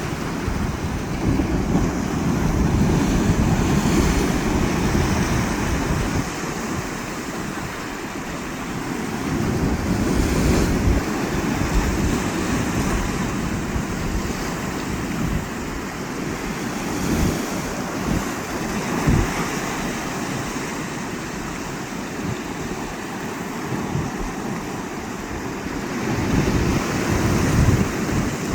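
Sea waves breaking and washing up a beach, a continuous surf, swelling louder a few seconds in, again around ten seconds, and near the end. Wind buffets the microphone with a gusty low rumble.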